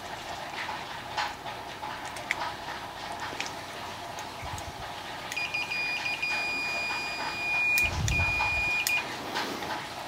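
Digital multimeter's continuity beeper sounding a steady high beep for about three and a half seconds, cut once briefly, as the test leads bridge a microwave door micro switch: the beep is the sign that the switch is conducting. Light clicks of probes and handling around it.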